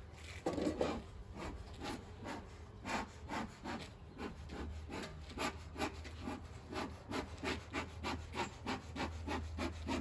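Bee smoker's bellows being pumped in a steady rhythm, about two to three strokes a second, each a creaking, rubbing puff, working up smoke before the hive is opened.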